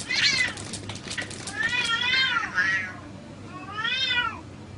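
Cats yowling in a fight: a string of drawn-out calls that rise and fall in pitch, the last one about four seconds in.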